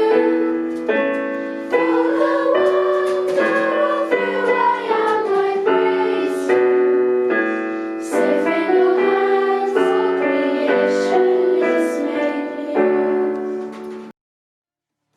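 Choir singing with piano accompaniment, the chords changing about once a second; the music cuts off suddenly near the end.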